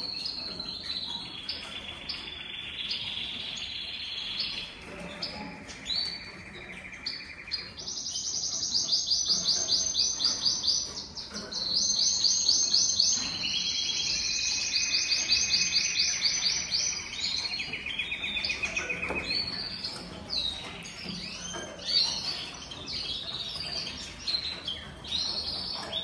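Several caged finches singing, with long fast trills of repeated high notes that overlap one another, the busiest and loudest stretch in the middle.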